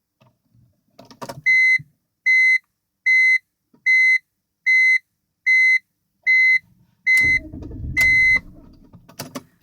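An electronic beeper sounding nine short, high, steady beeps, about one every 0.8 seconds, the last one held longer. A low rumbling noise starts under the last two beeps, about seven seconds in.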